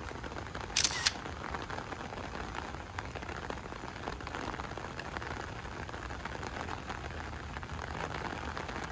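Rain falling on an umbrella overhead: a steady hiss of many small drop ticks. About a second in there is one short, sharp click.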